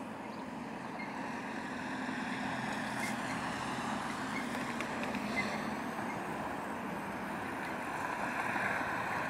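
Steady outdoor rush of road traffic noise, swelling slightly near the end.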